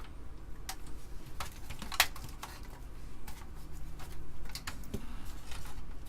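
Light clicks and taps of metal and plastic as an Amiga 500's motherboard and its metal RF shielding are tugged and worked against something still holding the board in. A sharp click about two seconds in is the loudest.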